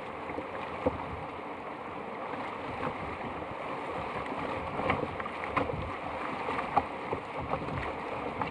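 Whitewater rapids rushing steadily around a canoe as it is paddled, with a few short, sharp splashes from the paddle strokes.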